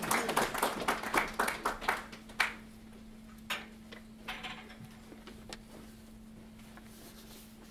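Short clicks and knocks of movement and handling, packed close for the first two seconds or so, then a few isolated knocks, over a steady low hum.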